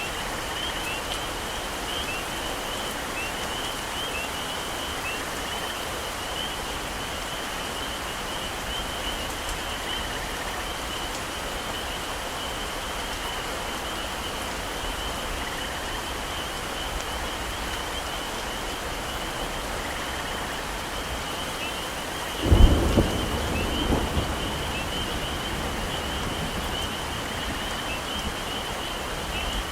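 Steady heavy rain with a constant high chorus of small chirps above it. About two-thirds of the way in, a sudden thunderclap and a second crack rumble on for a couple of seconds.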